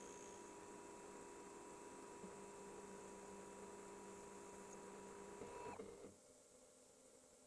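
Faint steady whine of a CNC milling machine running, several held tones over a hiss, with a slitting saw cutting through an aluminum tube. The machine sound stops about six seconds in, leaving quiet room tone.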